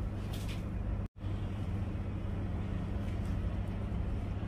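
Steady low hum of indoor background machinery, cutting out for an instant about a second in.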